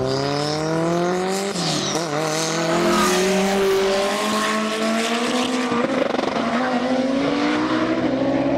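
Two high-powered cars, a turbocharged Honda S2000 and an Audi R8, accelerating flat out from a rolling start and passing by. Their engine notes rise in pitch through the gears, with a shift about a second and a half in. This is the run in which the S2000's engine breaks a connecting rod and holes its block.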